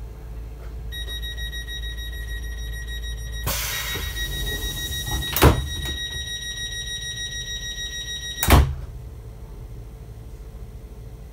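Class 465 electric train's door warning tone sounding as the passenger doors close, with a hiss of air. There is a loud thud about halfway through, and a second loud thud near the end as the tone stops: the doors shutting before departure.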